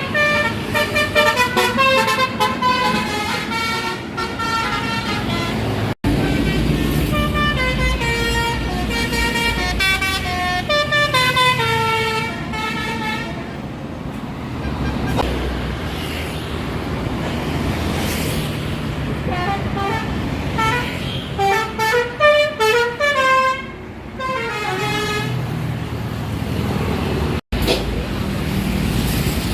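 Bus 'telolet basuri' melody horns playing quick stepping tunes of several notes at once, in two long runs with a pause between them, over the low rumble of the bus engines.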